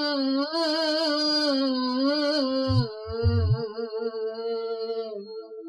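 A male gana singer's voice through a microphone, holding a long wavering note without words. A few low thumps come about three seconds in, after which a quieter, steadier tone carries on.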